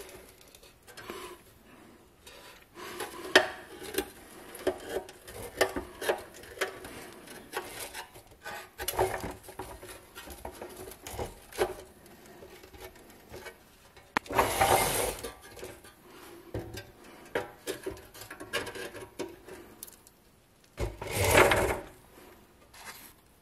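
A screwdriver prying and scraping at drilled-out rivets in the rusty pressed-steel dump bed of a Mighty Tonka toy dump truck, giving irregular metal clicks, taps and scrapes. There are two longer, louder rattling scrapes, about 14 seconds in and again near the end.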